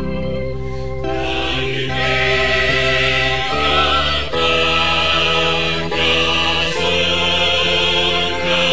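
Mixed church choir of men and women singing a hymn over held organ chords. The choir comes in about a second in, with the organ playing alone before that.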